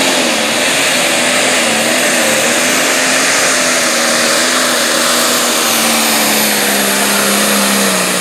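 Turbocharged diesel engine of a Light Pro Stock pulling tractor, an International 7220, running flat out under full load as it drags the weight sled, with a high whine over the engine note. The pitch holds steady and sags slightly near the end as the load builds.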